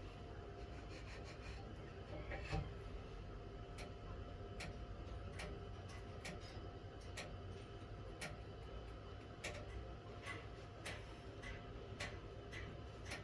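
Light sharp clicks or taps, one or two a second and unevenly spaced, with a louder knock about two and a half seconds in, over a steady low hum.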